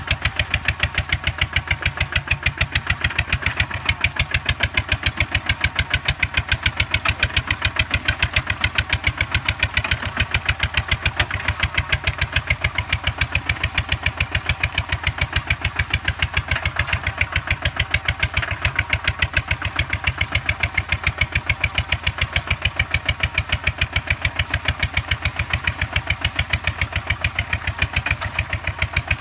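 Two-wheel walking tractor's single-cylinder diesel engine running steadily under load as it pulls a plow through wet paddy mud, its exhaust beating in a fast, even chug.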